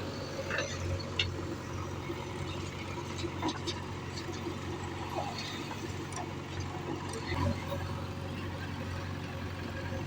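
Diesel engine running steadily with a constant low hum, with scattered faint clicks and knocks over it.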